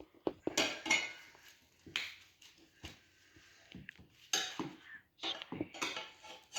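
Metal tire levers clinking and clanking against each other and the wheel, a run of irregular sharp knocks, some ringing briefly.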